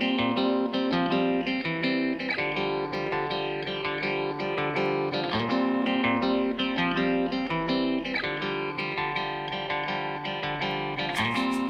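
Background music led by plucked guitar, with a steady beat and crisp percussive ticks coming in near the end.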